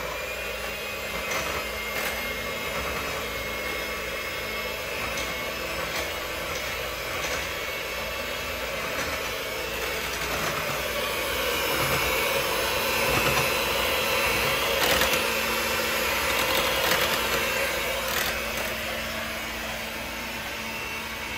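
Electric hand mixer running steadily, its beaters whisking thin cake batter in a glass bowl; it gets somewhat louder about halfway through.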